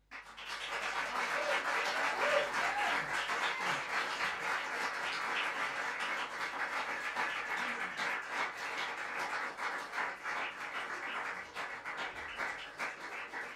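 Audience applauding in a small room: dense, steady clapping with a couple of brief calls about two seconds in, thinning toward the end.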